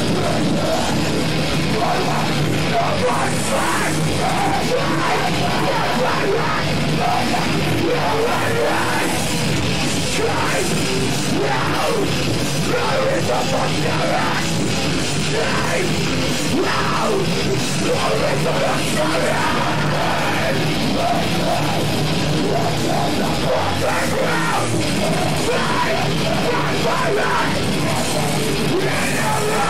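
Heavy experimental metal band playing live at full volume: distorted electric guitars and drums, recorded through a camcorder's built-in microphone.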